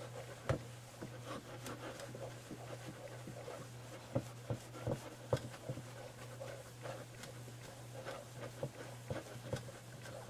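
Cloth buffing dried Novus polish off a clock lens: soft rubbing with scattered light taps and clicks, over a steady low hum.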